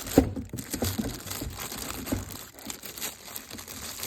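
Packaging crinkling and rustling as it is handled, with scattered light clicks and knocks.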